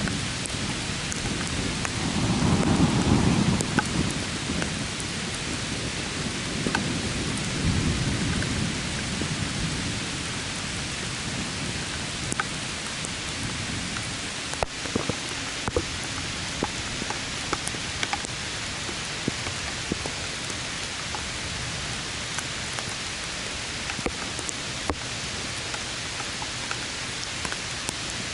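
Steady rain with thunder rumbling low, loudest about three seconds in, with a weaker second roll around eight seconds. After that only the rain continues, with scattered close drops ticking.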